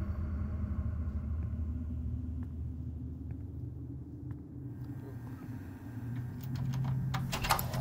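Low, steady, ominous drone of a horror-film sound design, with a quick run of sharp clicks building near the end.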